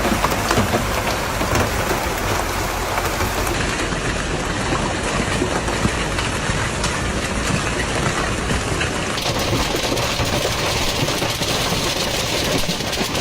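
Heavy storm downpour of rain and hail pelting hard surfaces, a dense, steady patter of countless small impacts.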